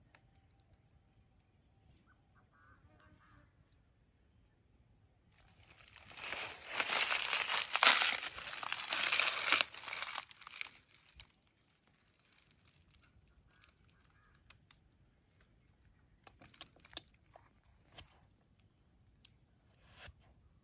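A loud crinkling rustle that lasts about five seconds in the middle of an otherwise quiet stretch, followed by a few faint clicks.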